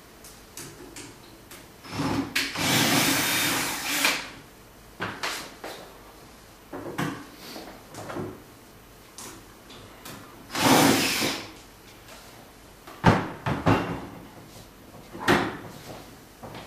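Metal parts and tools being handled while a stepper motor is taken off an aluminium CNC router frame. There are two longer scraping noises, one about two seconds in and one near the middle, and several sharp knocks and clicks later on.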